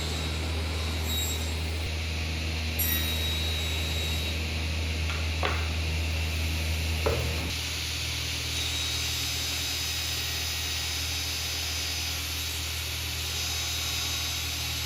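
Woodworking power tool running steadily and cutting wood, with a low motor hum; the sound shifts slightly about halfway through, with a couple of small ticks.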